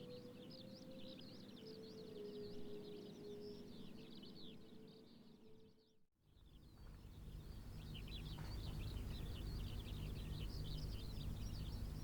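Many small birds chirping over faint outdoor background noise, while the last note of the loudspeaker chime fades out in the first few seconds. About six seconds in there is a moment of dead silence. After it a low steady rumble sits under the birdsong.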